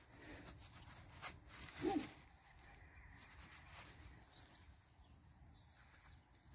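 Quiet outdoor air, close to silence, with one short, faint rising call about two seconds in.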